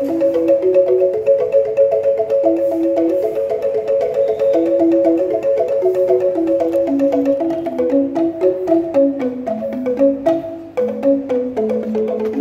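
Angklung playing a melody: shaken bamboo tubes sound each note as a rapid rattling tremolo, with several notes at once, a higher pair of notes held steady over a moving lower line. There is a brief break about three-quarters of the way through.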